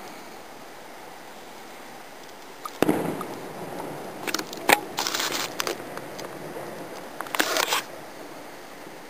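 Fireworks going off: a bang about three seconds in, then crackling with sharp pops, and another crackling burst near the end.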